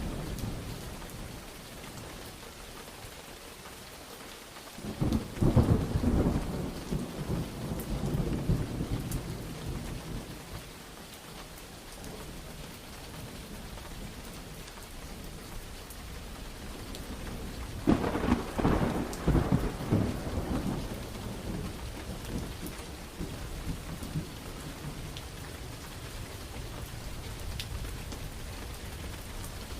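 Steady rain falling, with two rolls of thunder: one rumbling in about five seconds in and dying away over several seconds, and a second starting with a sharp crack about eighteen seconds in and rumbling for a few seconds.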